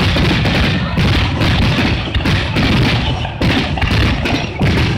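Fireworks display: aerial shells bursting in a rapid barrage, the booms and crackling reports overlapping with no break.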